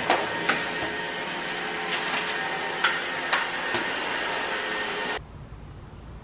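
A small motor humming steadily with a whine, with several sharp clicks and knocks over it; it cuts off abruptly about five seconds in, leaving a quieter low rumble.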